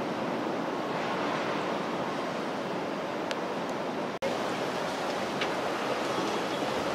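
Steady rushing noise of wind and water, broken by a brief dropout about four seconds in.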